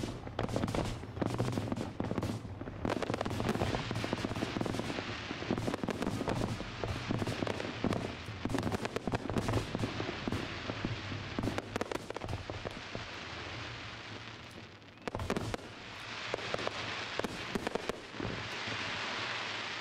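Fireworks display: rapid, dense crackling and popping from fountains and small shells fired low over the water. There is one louder bang about fifteen seconds in, and a steady hiss near the end.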